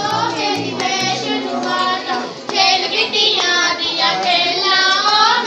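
A devotional bhajan: high voices singing over music, growing louder a little after halfway.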